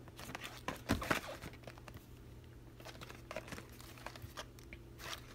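Cardboard Fruit Roll-Ups box being turned over in the hands: faint scrapes and taps of fingers on the cardboard, with one sharper knock about a second in.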